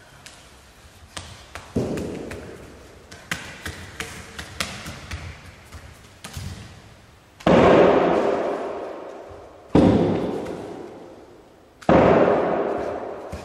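Percussive performance sounds: light scattered taps and knocks, then three heavy struck hits about two seconds apart, each ringing out and dying away over a couple of seconds.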